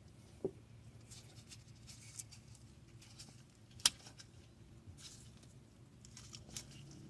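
Faint clicks and rustling of hands and tools working at a disc brake caliper, with a short knock about half a second in and one sharp click about four seconds in.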